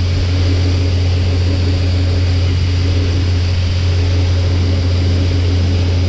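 John Deere 8820 combine running at a steady, unchanging pitch, a strong low hum with a hiss above it.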